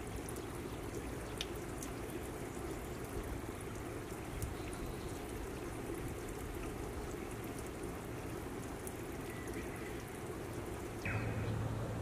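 Shallow stream trickling steadily over stones, with faint small ticks of water. Near the end the water gives way to a louder steady low hum.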